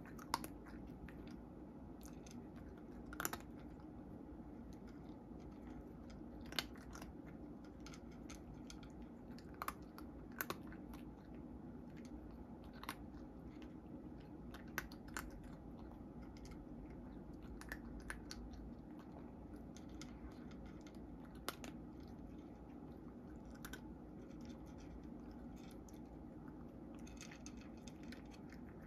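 Cat chewing dry kibble: quiet, irregular crunches every second or two over a faint steady hum.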